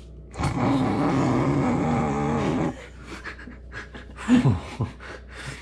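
A man laughing hard: a long wheezing laugh for about two seconds, then quieter, with a short laugh falling in pitch about four seconds in.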